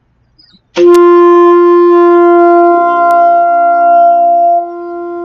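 Alto saxophone playing a long tone on written D (concert F), tongued in about a second in and held steady for about four seconds, dropping in volume near the end before the next long tone starts right at the end. Long-tone warm-up on the concert F major scale.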